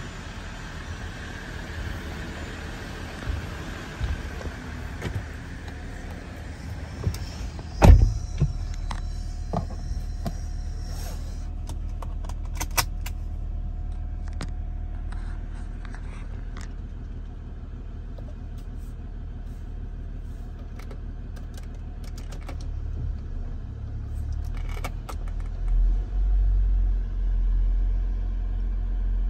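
2014 Jeep Grand Cherokee's 3.0L V6 EcoDiesel idling, a low steady rumble. A loud thump comes about eight seconds in, followed by scattered clicks and rattles. The rumble grows louder near the end.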